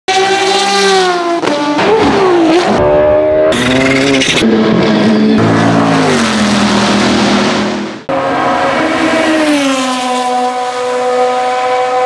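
An edited montage of racing-car engines at high revs, cut abruptly from one clip to the next every second or two, with the pitch sweeping up and down through gear changes. After a cut about eight seconds in, a single engine holds a high, steady note that slowly falls.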